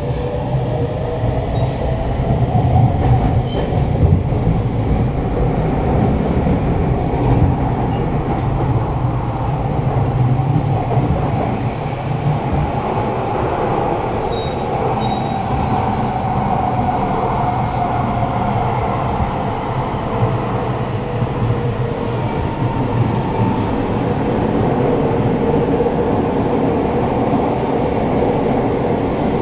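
Siemens C651 metro train pulling out of a station and running through a tunnel, heard from inside the carriage: a loud traction motor whine that rises in pitch over the first few seconds, over a steady rumble of wheels on rail. Later the whine sweeps up and down as the train runs on.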